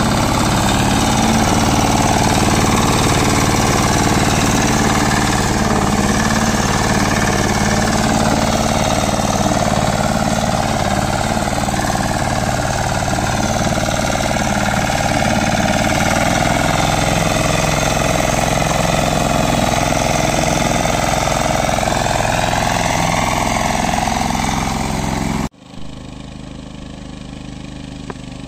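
Two-wheel tractor (patpat) engine running steadily close by while pulling a loaded wood trailer through mud, its pitch wavering slightly. Near the end the sound drops suddenly to the same engine heard faint and far off.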